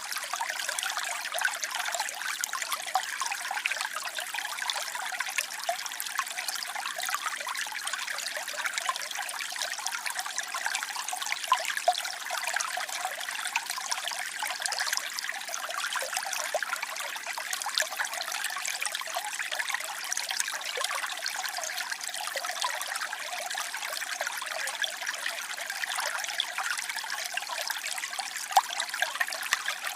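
Waterfall: a steady rush of falling water with small splashes flickering through it. The low rumble is missing; the sound sits in the higher register.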